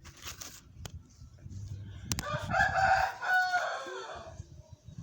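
A rooster crowing once, a call of about two seconds starting about two seconds in and dropping in pitch at the end.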